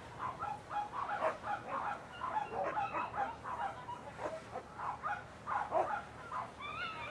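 Dogs barking repeatedly, in short, irregular barks one after another.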